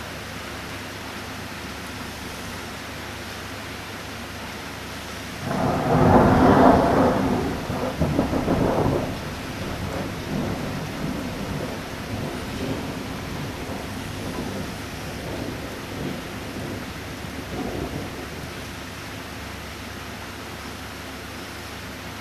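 Steady rain, then about five seconds in a sudden loud thunderclap that rumbles and rolls away in weaker peals over the next ten seconds or so.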